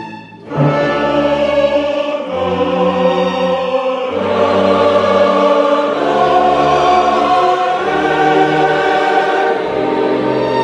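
Background music: a choir singing sustained chords over an orchestra, with the chords changing every second or two and a brief drop in loudness about half a second in.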